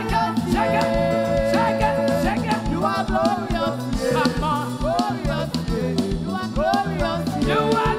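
Live gospel worship band music with a steady drum beat and melodic lines that slide and bend in pitch.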